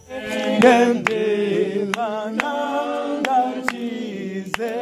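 A group of mostly women's voices singing a hymn unaccompanied, with sharp hand claps keeping the beat about every half second to a second.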